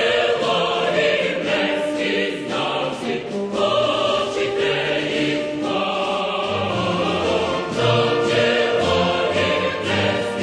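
Background music: a choir singing held, slowly changing chords.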